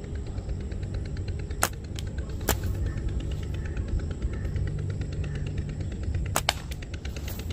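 Slingshot shots firing 6 mm steel balls: sharp snapping clicks, a few about two seconds in and a close pair about six and a half seconds in, over a steady low rumble.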